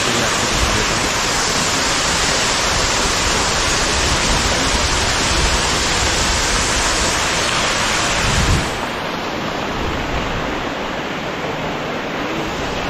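Small waterfall and stream rushing steadily over boulders into a rock pool. About two-thirds of the way through, the rush turns a little quieter and duller.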